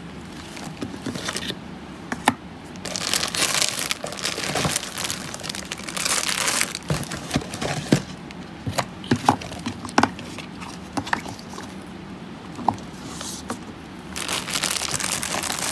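Plastic packaging crinkling in several bursts, with sharp single clicks as plastic wire spools are handled and stacked on a table.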